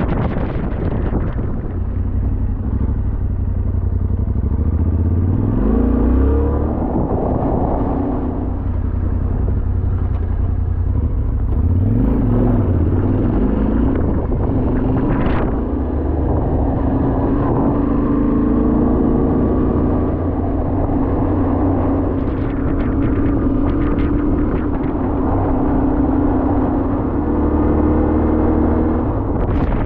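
Yamaha Ténéré 700's parallel-twin engine under way, its note dropping and climbing a couple of times as the rider shifts and accelerates, then holding steady. A single sharp click midway.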